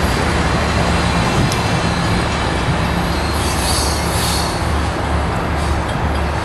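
Amtrak Surfliner passenger train pulling away, its bilevel cars rumbling steadily over the rails and fading slightly. A brief high wheel squeal comes about three and a half seconds in.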